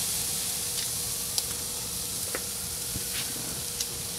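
Steaks and shrimp sizzling on a grill grate over a live fire: a steady hiss with a few sharp pops and crackles.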